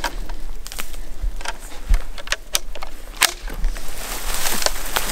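Footsteps crunching and swishing through dry brush, with irregular sharp snaps and clicks, becoming a denser rustling from about four seconds in.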